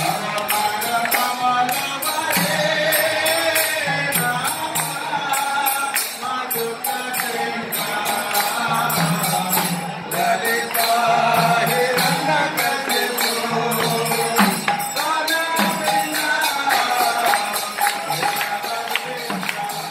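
Devotional kirtan: a crowd chanting and singing together over jingling metallic percussion that keeps a steady beat.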